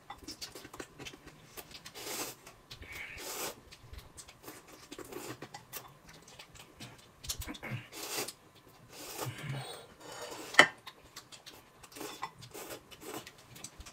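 Noodles being slurped and chewed in repeated short bursts, with chopsticks and bowls clicking. A single sharp clack a little past ten seconds in is the loudest sound.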